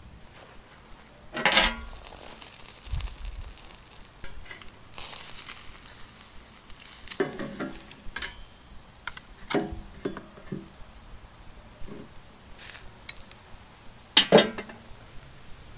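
Tomahawk ribeye steak sizzling on a stainless steel wire grill grate, with metal tongs clinking and scraping on the grate several times as the steak is turned. The loudest clatters come about a second and a half in and near the end.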